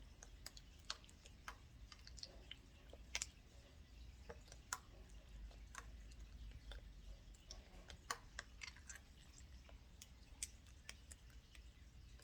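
Irregular light clicks and taps from handling bead ice cream, about a dozen scattered through the stretch, the sharpest a little after three seconds and about eight seconds in.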